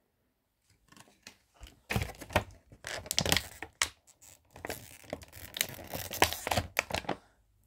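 Toy packaging being torn open and handled by hand: irregular rustling and tearing sounds, starting about two seconds in and stopping just before the end.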